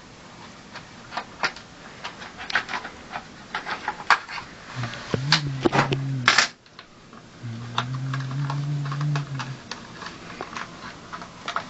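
Irregular clicks and taps of plastic and metal computer parts being handled during a PC build, with one sharper click a little past the middle. Two short, low steady hums come near the middle.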